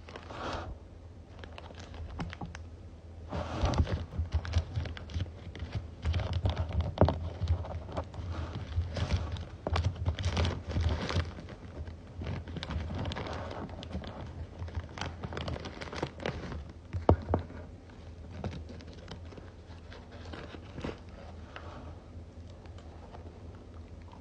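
A strawberry mochi's wrapper and bag crinkling and rustling as they are handled and opened, with many small clicks and taps. Busiest through the middle, quieter near the end.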